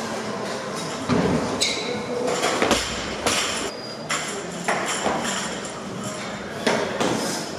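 Barbells and weight plates clanking in a gym: an irregular string of sharp metal knocks, several ringing briefly like a ping, over the hall's steady background noise.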